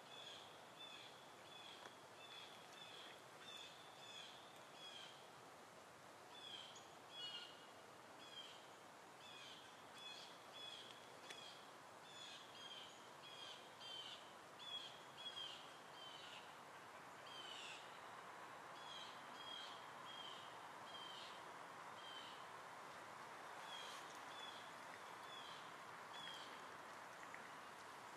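Faint woodland ambience: a bird repeating short, high chirps, one or two a second, over a steady background hiss. The chirps grow sparser in the second half.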